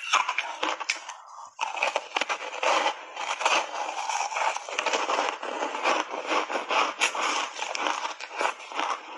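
Purple refrozen ice chunks coated in matcha milk powder being bitten and crunched in the mouth close to the microphone: a dense, continuous run of crackling crunches, with a brief pause about one and a half seconds in.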